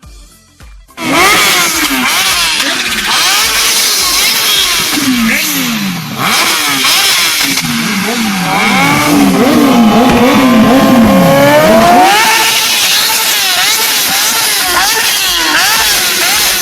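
Kawasaki ZX-14R and ZX-10R sport motorcycles' inline-four engines revving hard over and over, the pitch rising and falling with each blip, with a long rising rev near the middle. Several revs overlap, as from more than one bike.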